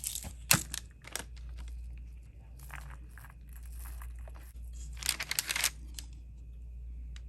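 Close handling noises of small craft supplies: rustling and crinkling, with a sharp click about half a second in and a louder spell of crinkling about five seconds in.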